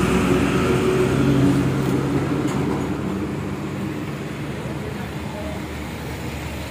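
Road traffic: a motor vehicle engine running close by, loudest in the first couple of seconds and then fading, over a steady traffic hum.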